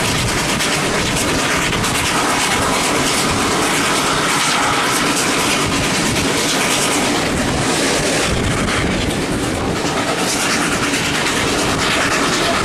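Steam-hauled train running at speed, heard from aboard: a loud, steady rush of running and rail noise with clattering wheels over the track.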